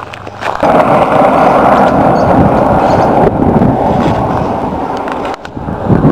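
Loud rushing wind buffeting the camera microphone, starting suddenly about half a second in and briefly dropping away near the end before it returns.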